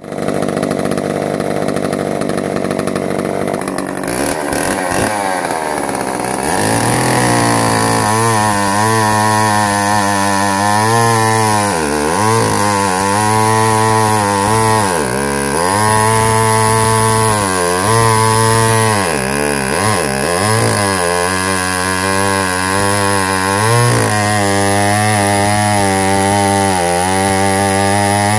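Homelite 2000 chainsaw's 115cc two-stroke engine with a 48-inch bar, running steadily at first, then revved up about four seconds in and held at high speed while it cuts through a log. Its pitch dips briefly and recovers several times during the cut.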